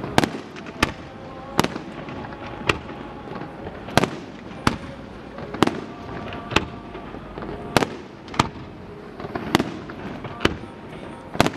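Fireworks display: aerial shells bursting in a steady series of sharp bangs, roughly one a second.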